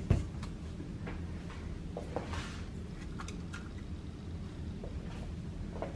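Metal cookie scoop working chocolate chip cookie dough: light clicks, taps and a short scrape as dough is scooped from a steel bowl and dropped onto a parchment-lined baking tray. A sharp thump at the start and another near the end are the loudest sounds, over a low steady hum.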